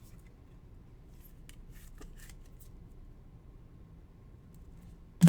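Trading cards being handled, with a few faint quick sliding strokes, then a single sharp knock near the end.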